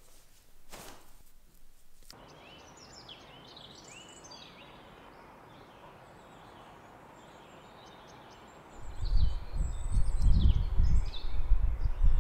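Small birds chirping and singing over a steady outdoor background. From about nine seconds in, gusts of wind buffet the microphone with a loud, uneven rumble.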